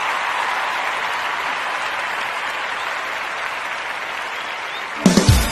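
Crowd applause, an even steady clapping that fades slightly; near the end, music with a heavy drum beat cuts in suddenly.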